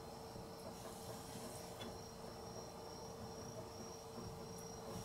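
Faint, steady high-pitched insect trill over a low, steady hum, with a few faint taps as a knife slices fish on a plastic cutting board.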